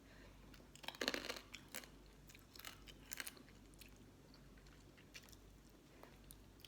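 Mouth sounds of eating mango salad with pickled sea crab: a cluster of bites and chews about a second in, then scattered fainter chewing clicks that die away after about three seconds.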